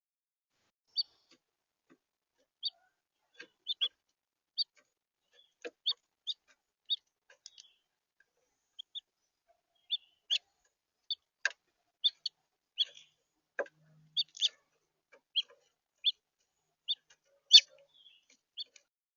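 House finches giving short, high chirp calls, one every half second to a second and sometimes in quick pairs, with a few faint clicks in between.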